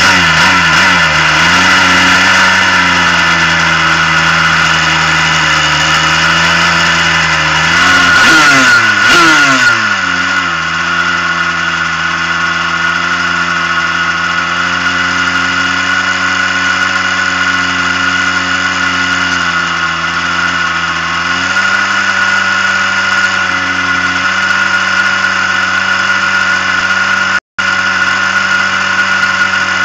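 Superkart's two-stroke engine running at a fast idle with the kart stationary, warming up, with a quick rise and fall in revs about eight seconds in.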